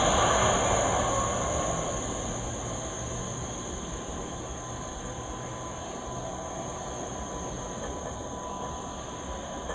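Jet engine noise from an Airbus A330-300 rolling along the runway, loudest at the start and fading over the first few seconds as the airliner moves away, then a steady lower rumble.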